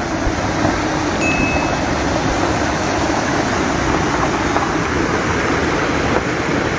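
Muddy floodwater from an overflowing wadi rushing across a road, a steady noise of moving water with a ragged low rumble.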